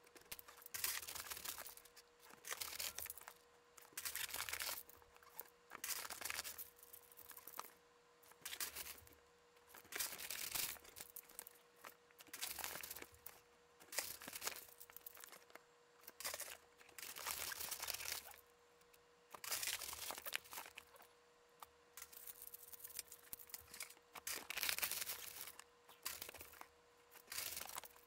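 A plastic bank coin bag crinkling and loose half dollars clinking and sliding as hands rummage through them, in repeated bursts about every two seconds.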